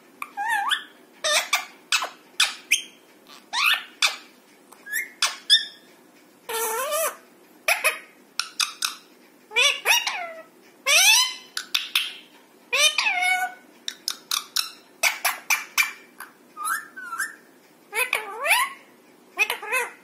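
Alexandrine parakeets calling: short, high squawks, many sliding upward in pitch, repeated about once a second, sometimes in quick pairs or threes.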